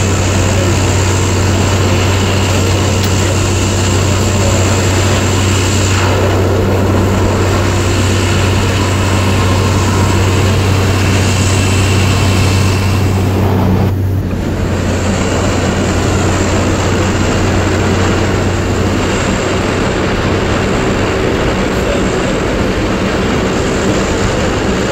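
Add-on propeller and 1968 Chevrolet pickup running together at road speed, heard from inside the cab as a loud steady drone. The strong low hum drops away a little over halfway through, and the drone carries on.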